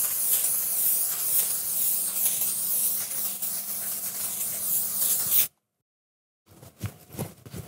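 Hand-held aerosol can of smoke spray hissing in one long continuous burst, laying haze into the air; it cuts off suddenly about five and a half seconds in.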